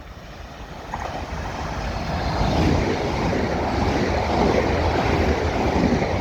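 Two coupled Class 450 Desiro electric multiple units passing through the station without stopping. The rushing noise of wheels and air builds over the first two seconds, then stays loud and steady.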